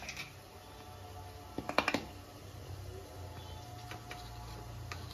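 A quick cluster of light clicks and taps, about two seconds in, from kitchen utensils and spice containers being handled on a stone counter, with a few fainter clicks later over a steady low hum.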